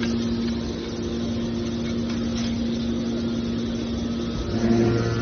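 Hydraulic scrap-metal baler's power unit running with a steady machine hum. About four and a half seconds in, the hum grows louder and deeper.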